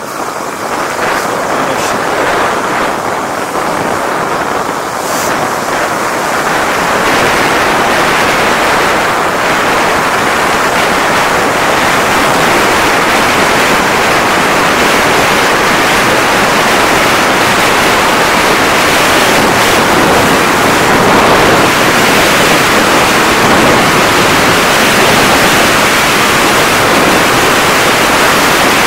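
Wind rushing over the microphone and the glide across snow-covered ice while snowkiting, a loud steady hiss that builds over the first several seconds and then holds.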